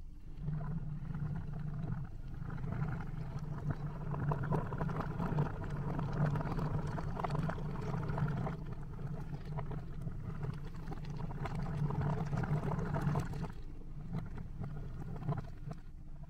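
Hundreds of water beads (orbeez) squishing and clicking against each other, a rubber balloon and a glass bowl as hands knead them, played backwards: a dense wet clatter that thins out near the end.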